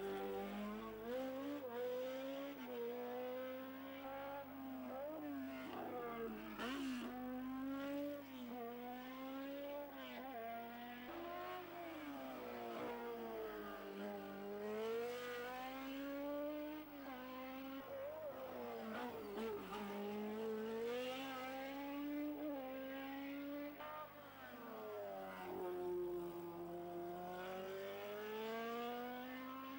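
Racing car engines at full throttle, the revs climbing steeply and then dropping at each gearshift or lift, over and over.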